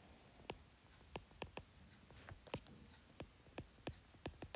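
Faint, irregular clicks of a stylus tip tapping on a tablet screen during handwriting, about a dozen of them.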